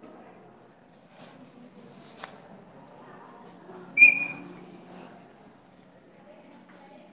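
Chalk on a blackboard: a scraping stroke, then a sharp tap of the chalk with a brief high squeak about four seconds in, the loudest sound.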